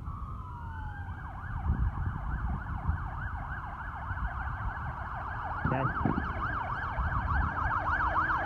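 Police car siren sounding: a slow wail that switches about a second in to a fast yelp, sweeping up and down in pitch several times a second.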